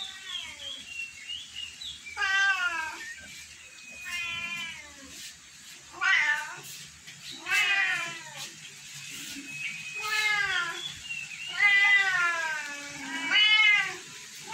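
Domestic cats meowing over and over: about eight drawn-out meows that fall in pitch, one to two seconds apart, with calls from more than one cat overlapping near the end.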